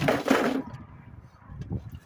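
A sudden clatter lasting about half a second as a lawn mower part is worked loose, followed by a few faint knocks near the end.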